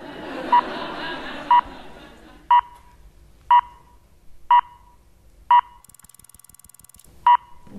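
Countdown sound effect: short electronic beeps, evenly spaced about a second apart, six in a row and then one more near the end. A noisy wash sits under the first few beeps and fades out.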